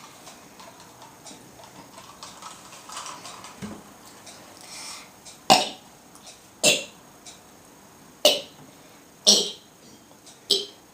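A girl forcing out short throaty bursts while trying to burp the alphabet: a quiet stretch, then five sharp bursts about a second apart.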